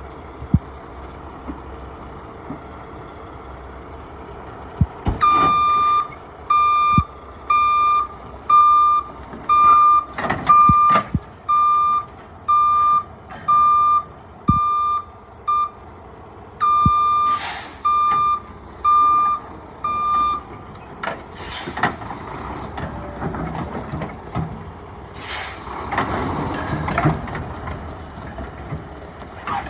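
Delivery truck backing up, its reversing alarm beeping a little more than once a second for about fifteen seconds with one short break, over the low running of the engine. Several short hissing bursts follow in the second half.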